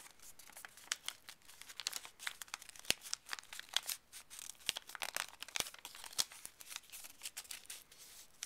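Sheet of paper being folded and creased by hand: irregular crinkling and rustling with a few sharper crackles as the flaps are pressed in.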